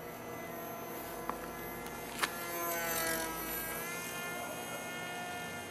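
Micro brushless motor (AP03) spinning a small 3020 propeller on a single-cell LiPo, buzzing as the foam RC plane flies; its pitch shifts down and back around the middle. A single sharp click about two seconds in.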